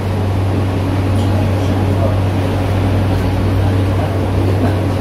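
Interior of a Stadler FLIRT electric multiple unit: a steady low electrical hum under an even rushing noise.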